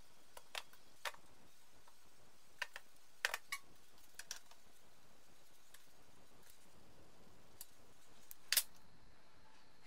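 Small metal air fittings clicking and clinking as they are handled and fitted to aluminium outlet blocks, then a spanner working a fitting held in a bench vise. Sparse light clicks in small clusters, the loudest a double knock near the end.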